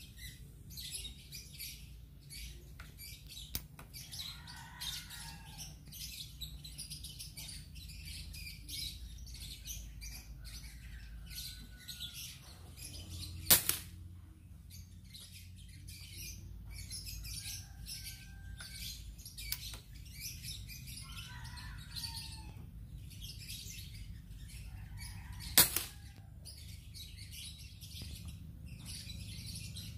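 Two shots from a GCMAG airgun with a Lothar Walther polygon choke barrel, each a single sharp report, about twelve seconds apart. Small birds chirp and call throughout.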